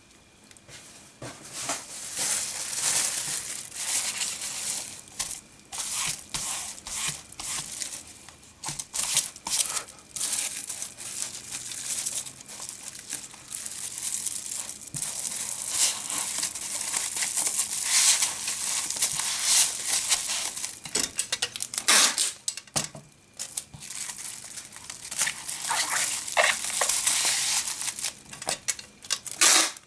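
Wrapping material crinkling and rustling in the hands as items are wrapped for packing. It comes in uneven stretches with short pauses.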